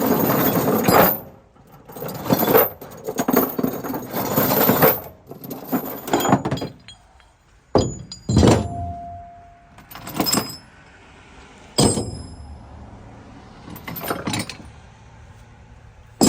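Irregular metal clanks, rattles and sharp knocks, several separate bursts spread over the whole stretch, a few of them ringing briefly.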